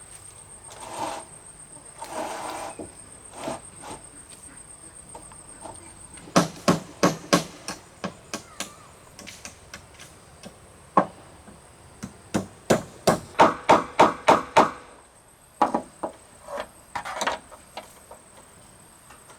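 Hammering: sharp blows struck in quick runs of several strikes, with pauses between the runs and one lone blow in the middle.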